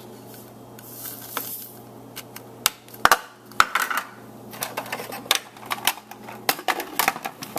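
Irregular clicks and knocks of hard plastic as a food processor's bowl and lid are handled, sparse at first and coming thick and fast in the second half.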